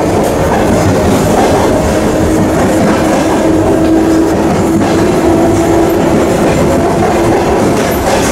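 ER2T electric train coach running along the track, heard from inside at the end doors: a loud, steady rumble of wheels and running gear with a steady hum through it.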